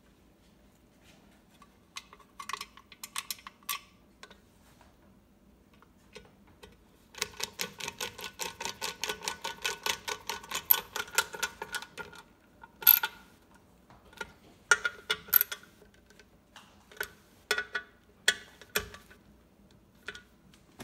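Ratcheting hand screwdriver clicking as it drives screws into the metal bowl-locking plate of a KitchenAid stand mixer's base. There are a few scattered clicks at first, then a quick, even run of about six clicks a second for some five seconds in the middle, then more scattered clicks.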